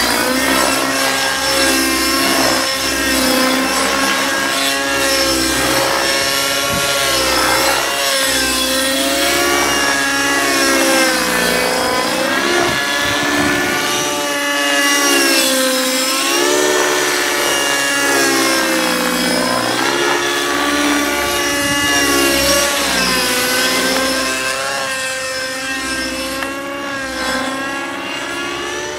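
Align T-Rex 600 Nitro RC helicopter in flight: its glow-fuel engine and rotors whining at high revs, the pitch rising and falling again and again through aerobatic manoeuvres. The engine is new and being broken in. The sound grows fainter near the end.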